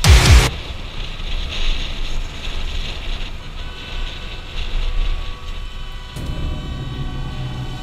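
Wind noise on a helmet-mounted camera's microphone while riding a Kawasaki motorcycle, with the engine running underneath. It opens with a brief loud burst. The engine's low hum grows stronger about six seconds in.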